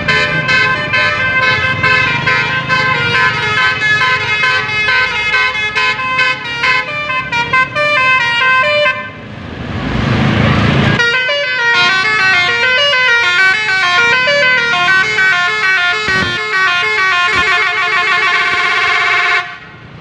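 Bus 'telolet' horns playing a fast melody of stepped multi-tone notes, broken about halfway through by a burst of rushing noise, then playing on and cutting off suddenly near the end.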